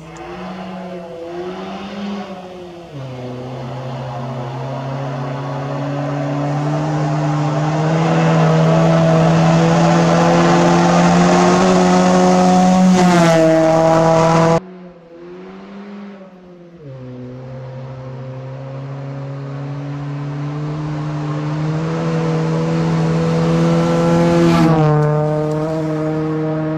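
Ford Focus rally car's engine coming through at speed on a gravel stage. The revs dip and rise briefly, then are held high and grow louder, and the pitch drops as the car passes. About halfway the sound cuts off suddenly and the same approach starts again, building up toward the end.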